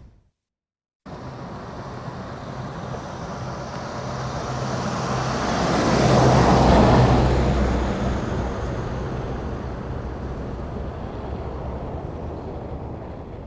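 A motor vehicle passing by: it starts about a second in, grows louder to a peak about six to seven seconds in, then slowly fades away.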